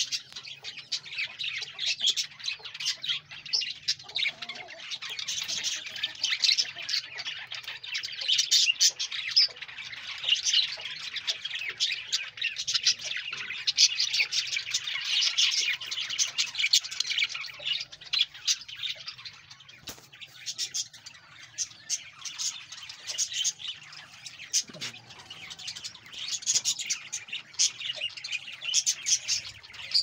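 A colony of budgerigars chattering continuously, a dense mix of warbling and many short high chirps and squawks from many birds at once.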